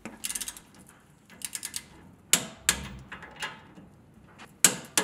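Socket wrench ratcheting as it tightens the drag link adjuster clamp nuts on a Jeep's steering linkage: short runs of quick ratchet ticks and a few single sharp clicks.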